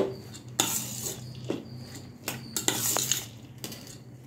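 A metal spoon stirring a moong dal and cucumber salad in a stainless steel bowl, clinking against the bowl's side about once a second with wet scraping swishes in between.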